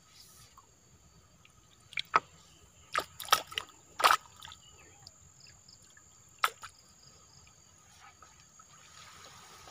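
Water dripping and splashing back into the river from a raised bamboo lift net: a handful of sharp, short plinks, bunched about two to four seconds in and again a little past six seconds.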